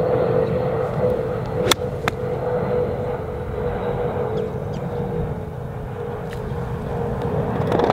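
A 60-degree sand wedge striking a golf ball off range turf: one sharp click about a second and three-quarters in, with a fainter click just after. A steady mechanical drone runs underneath.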